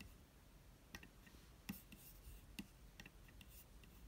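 Several faint, sharp clicks at irregular intervals, the strongest about halfway through: a MacBook Pro's Force Touch trackpad being clicked while browsing, over quiet room tone.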